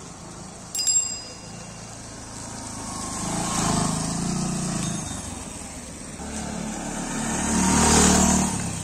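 Bajaj Platina 110 H-Gear motorcycle's single-cylinder engine running as the bike rides slowly past, swelling twice as it comes close. A short high-pitched ring sounds about a second in.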